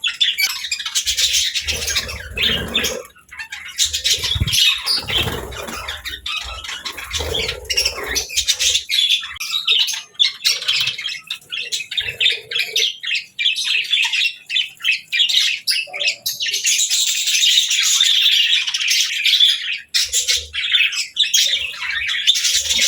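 Several budgerigars chattering with fast chirps, warbles and squawks, with some low thuds in the first several seconds.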